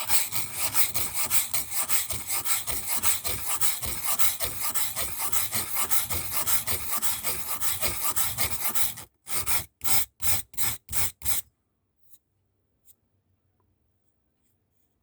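Scissor blade edge being rubbed back and forth on an oiled sharpening stone, a dry rasping scrape at several strokes a second. After about nine seconds it changes to about six slower, separate strokes, then stops.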